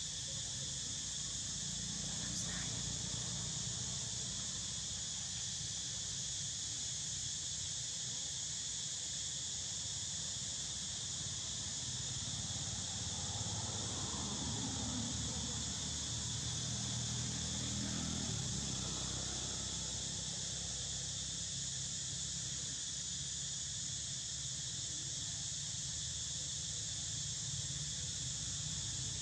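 Steady, high-pitched drone of an insect chorus, over a low rumble.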